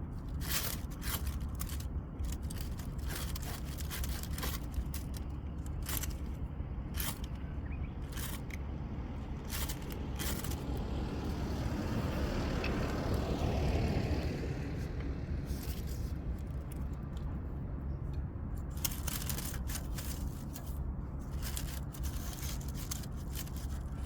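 Wood fire crackling, with irregular sharp pops and snaps. Around the middle a rushing sound swells up and falls in pitch as it fades.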